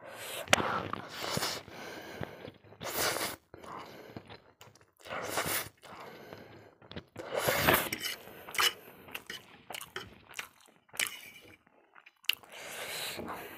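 Spicy instant noodles slurped and chewed close to a clip-on microphone, in a string of separate slurps and chewing sounds.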